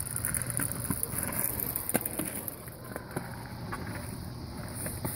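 Small kick scooter's wheels rolling along a concrete sidewalk, with a few sharp clicks, the loudest about two seconds in.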